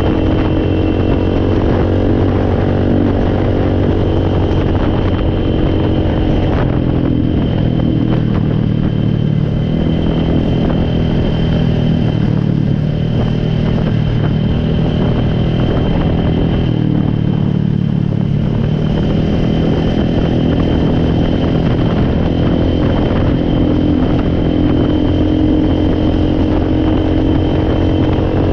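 An ATV engine running steadily, its pitch rising and falling a little as the throttle changes.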